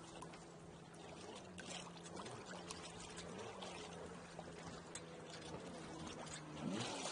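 Water gurgling and trickling along the hull of a small sailboat under way in light wind, with a faint steady low hum underneath that wavers slightly in pitch and grows a little louder near the end.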